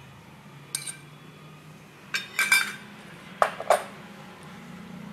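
Steel spoon and stainless-steel tumbler clinking together: a single sharp clink, a quick cluster of clinks about two seconds in, then two more, each with a brief metallic ring.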